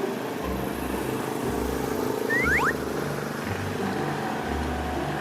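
Steady motor-vehicle traffic noise, with a few quick rising chirps about two and a half seconds in.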